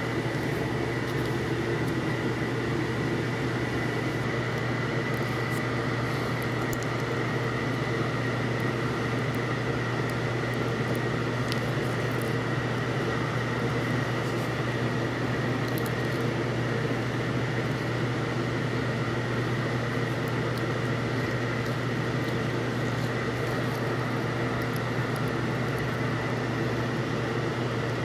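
A running electrical appliance humming steadily, with a low hum and a fainter high whine that hold level throughout.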